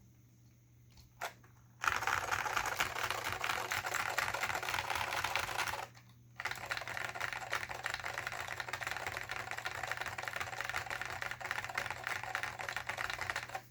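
Fast typing on a Dell AT101 keyboard with Alps SKCM Salmon switches and PBT dye-sublimated keycaps: a dense run of key clicks that starts about two seconds in, stops briefly near the middle, then carries on.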